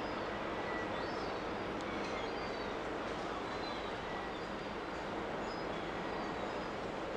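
Steady rumble and hiss of a large MSC container ship under way, its engines and machinery running, with a few faint, short bird chirps over it.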